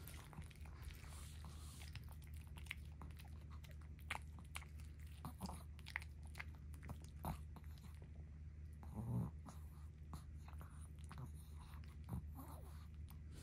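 Long-coat Chihuahua chewing and licking its lips after a treat, with a string of small wet mouth clicks, then nosing at the bedding. One louder, short sound about nine seconds in.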